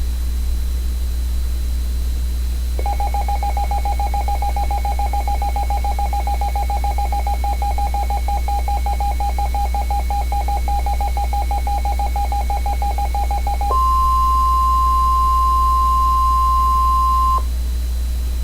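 NOAA Weather Radio alert tones: a rapidly pulsing beep tone for about eleven seconds, then the steady 1050 Hz warning alarm tone for a few seconds, which cuts off abruptly, announcing the next warning. A constant low hum runs underneath.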